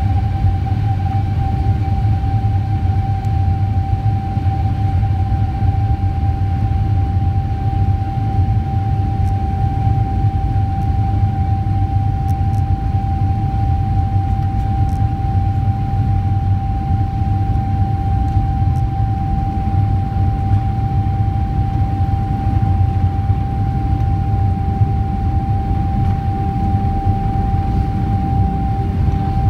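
A Boeing 777-300ER's GE90-115B jet engines at takeoff thrust during the takeoff roll, heard from inside the cabin. A steady low rumble carries a single steady whine above it.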